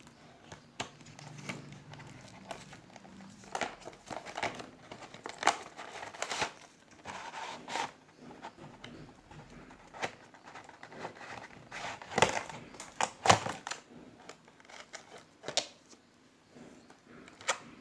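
Product packaging being opened and its contents handled by hand: irregular crinkling and rustling with sharp clicks and taps, the loudest a cluster about twelve to thirteen seconds in.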